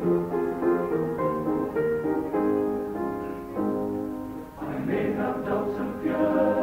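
Male voice choir singing a gospel song, holding sustained chords with no clear words for the first four and a half seconds, then singing more fully from there on.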